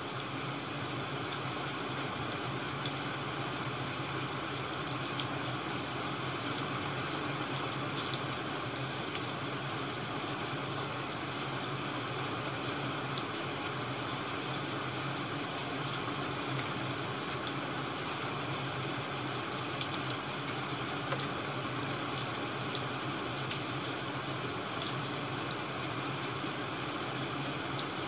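Crackling wood-fire ambience: a steady rushing hiss with scattered sharp pops of burning firewood, the loudest about eight seconds in.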